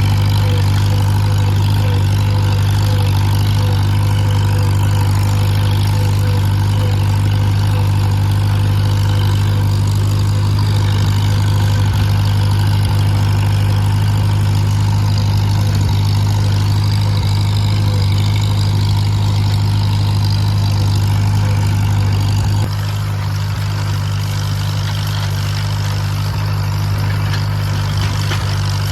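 Tractor engine running at a steady speed, a deep, even drone; about three quarters of the way through it shifts to a slightly quieter, duller tone.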